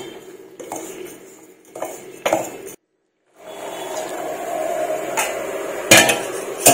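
A steel spoon scraping and stirring through coarse ground millet flour in a steel bowl, with a few light clinks. After a short silent break comes a steady hum, then two sharp metal clinks near the end as a tea strainer knocks against the bowl.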